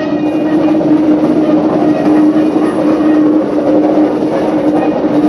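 Queensland Rail NGR electric train cars rolling slowly past on narrow-gauge track. The wheels rumble on the rails under a steady hum.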